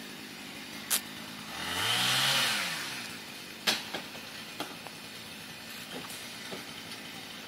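An engine swells for about a second and a half, its pitch rising and then falling, with a few sharp clicks around it.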